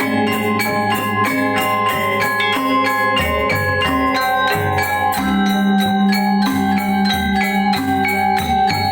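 Balinese gamelan playing a pelegongan piece: fast, dense strokes on bronze metallophones ringing over low sustained gong and bass tones.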